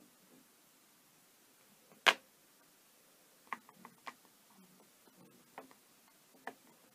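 Small craft pieces and tools handled on a cutting mat: one sharp tap about two seconds in, then several lighter clicks and taps.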